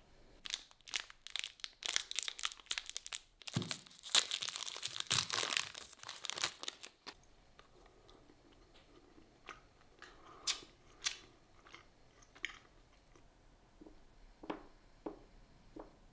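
Close-up eating of a chocolate-coated coconut bar: a dense run of crunching for about six seconds, loudest a little past the middle of that run, then scattered single clicks of chewing.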